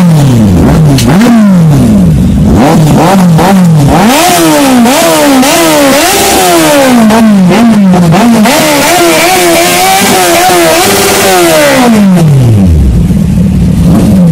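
Kawasaki inline-four superbike engine revved through a loud exhaust in a string of quick throttle blips, each rising and falling in pitch. The revs climb, are held high for about three seconds, then fall back to a steady idle, with one more blip near the end.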